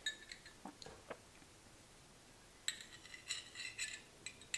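Light metallic clicks and clinks from handling a Zippo lighter's metal insert and chimney while its wick is rerouted: a few faint ticks at first, then after a short pause a run of small ringing clinks.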